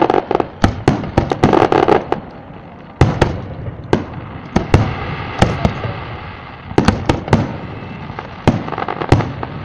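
Aerial fireworks bursting: many sharp bangs at irregular spacing, close together in the first two seconds, then a single loud bang about three seconds in after a short lull, and scattered bangs after it.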